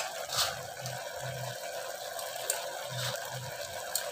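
Mutton cooking in its own juices in an aluminium pressure cooker: a steady low simmering hiss, with a few light clicks, one near the end as a spoonful of salt goes in.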